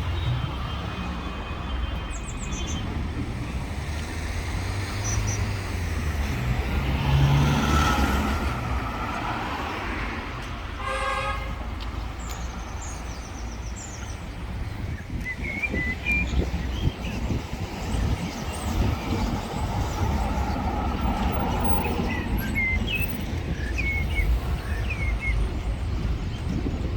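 Street traffic rumbling steadily, with a vehicle passing about a quarter of the way in and a short horn toot a little later. Small birds chirp briefly in the second half.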